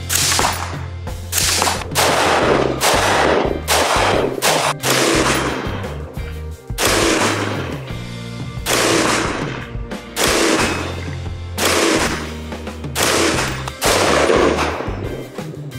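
A string of rifle shots from a 20-inch AR-15 (Aero Precision M16A4 pattern), fired at a steady pace of about one a second, each crack trailing off, over background music with a steady bass line.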